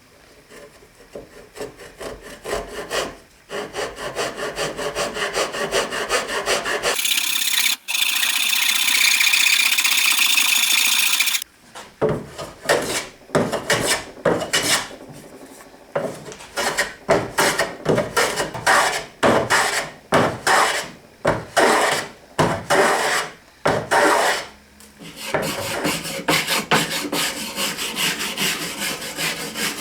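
Hand tool working wood in repeated back-and-forth strokes, rubbing and rasping, with a few seconds of louder continuous rasping in the middle.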